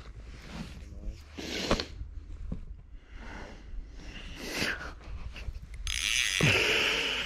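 Scattered rustling and handling noises of the angler's clothing and gear in a sit-on kayak, over a steady low rumble. A longer, louder rustle comes near the end as his hands come forward to the rod.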